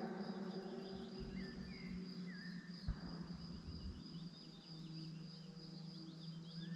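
Insects chirping steadily, with a few short bird chirps and a low steady hum underneath.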